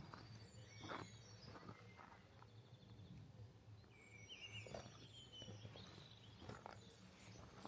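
Quiet outdoor ambience with small birds chirping faintly now and then, and a few soft, irregular footsteps of someone walking.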